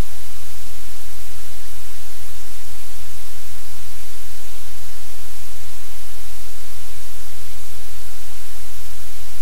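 Loud, steady static hiss with a low hum underneath, unchanging and without any distinct events.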